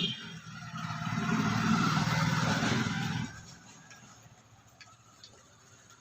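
Electric fan's motor humming as it runs up over about a second and holds steady, then cut off suddenly a little past three seconds in, leaving a fainter sound that dies away.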